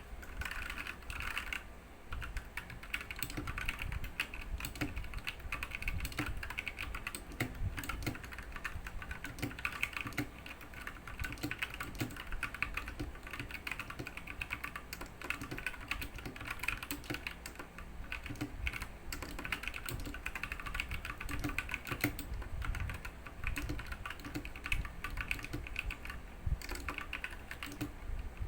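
Continuous fast typing on a Royal Kludge RK61 mechanical keyboard with brown tactile switches: a dense, steady run of key clicks and clacks.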